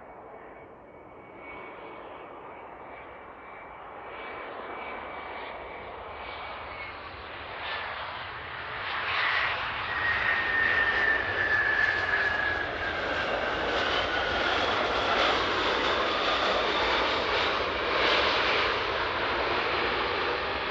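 Bombardier CRJ900's rear-mounted GE CF34 turbofans on a landing. A steady high whine on approach grows louder as the jet comes in. From about ten seconds in, as it rolls out on the runway, there is a louder rush of engine noise, with a whine falling in pitch.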